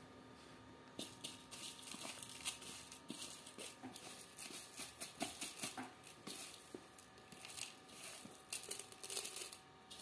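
Alexandrine parakeet chicks pecking and husking seed from a steel plate, with seeds shuffled by a hand: an irregular run of small clicks and crackles.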